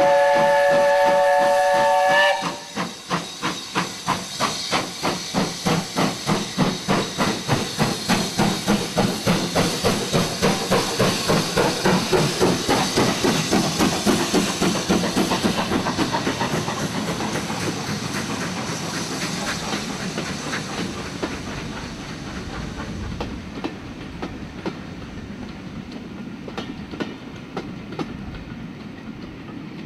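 Steam locomotive blows a chord-toned steam whistle for about two seconds, then works hard pulling away with its train. Its exhaust beats quicken to about three a second and fade as it passes, leaving the coaches' wheels clicking over the rail joints.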